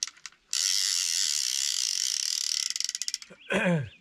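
Fly reel's click-pawl ratchet buzzing as line is wound in fast, breaking into separate quick clicks as the winding slows and stops. A short falling voice-like sound follows near the end.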